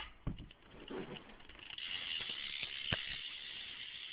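Rear hub of a 2010 Fit PRK 3 BMX bike spinning freely, its pawls making a fast, even ticking buzz that is not loud. A few knocks come in the first second, and the steady buzz settles in from about two seconds in.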